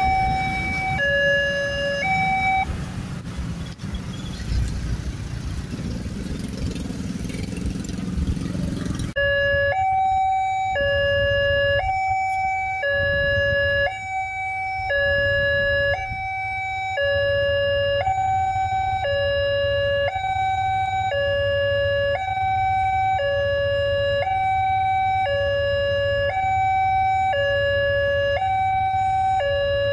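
Indonesian railway level-crossing warning alarm: an electronic signal alternating between a low and a high tone, each held just under a second. It stops about two seconds in and gives way to several seconds of rumbling road traffic. It then starts abruptly again and repeats steadily.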